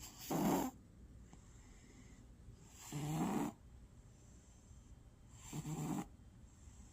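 Cat snoring in its sleep: three snores of about half a second each, spaced roughly two and a half to three seconds apart.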